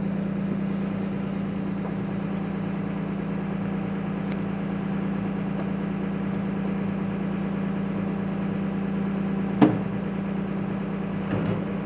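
Garbage compactor truck's diesel engine idling steadily, with a single loud knock near the end.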